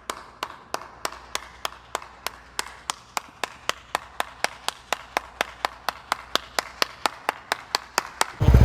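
Even, sharp ticking at about four or five ticks a second over a faint low hum, like a mechanical tick. It stops suddenly near the end, when a loud engine cuts in.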